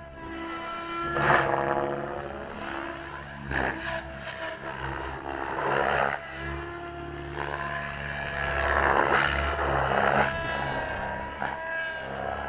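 Radio-controlled helicopter flying 3D aerobatics: the rotor and motor whine rises and falls in pitch as the manoeuvres change, with repeated surges of rushing noise.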